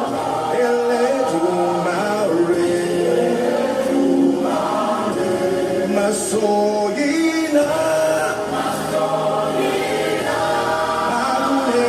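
Choir singing a gospel worship song, the voices holding long notes together.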